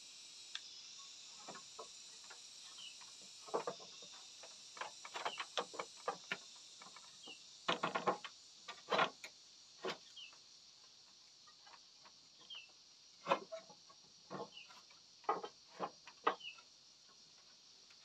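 Steady high-pitched chorus of insects, with a short falling chirp every couple of seconds. Brief sharp sounds come in irregular clusters throughout, loudest around the middle.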